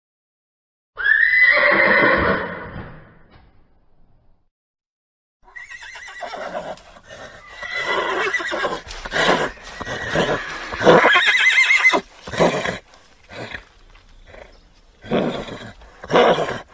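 Horse neighing: one whinny about a second in, then after a pause of a couple of seconds a long run of quavering whinnies and shorter calls, broken by brief gaps.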